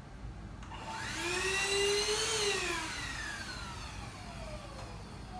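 TINTON LIFE MD1601 cordless stick vacuum's motor spinning up with a rising whine for about a second and a half, then winding down, its pitch falling over the next few seconds until it fades.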